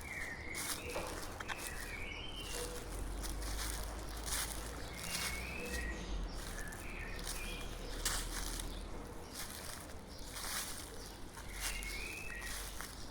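Footsteps crunching through dry fallen leaves at a steady walking pace, while a songbird repeats short chirping phrases several times.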